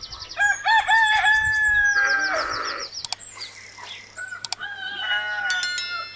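A rooster crowing twice: a first long crow starting about half a second in and lasting about two seconds, then a shorter second crow near the end. Small birds chirp faintly around the crows.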